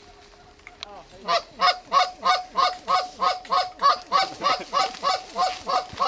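Canada goose honks blown on a hunter's goose call: after a quiet first second, a loud, very even run of honks starts, about three a second, calling to flying geese.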